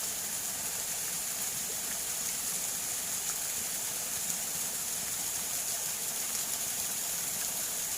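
Steady rush of water flowing along a small ditch.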